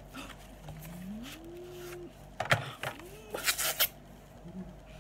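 Cosmetics packaging being opened by hand: a few sharp clicks about halfway through, then a short crackling burst near the end.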